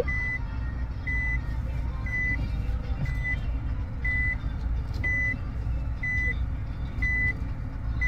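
Reverse warning beeper giving a short, high beep about once a second, the sign that the car is in reverse gear, over the low rumble of the running car engine.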